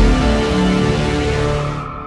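Dramatic soundtrack music: sustained chords over a deep bass, starting to fade near the end.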